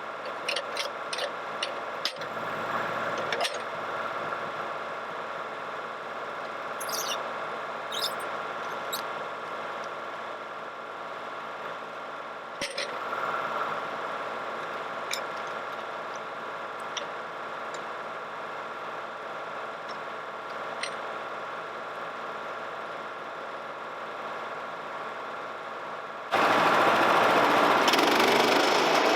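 Small engine idling steadily, with scattered clicks and knocks over it. About 26 seconds in it abruptly gets much louder and harsher, holding at that level to the end.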